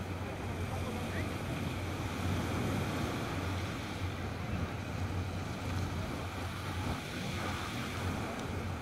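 Sea waves breaking and washing up the beach as a steady surf noise, with wind buffeting the microphone as a low rumble underneath.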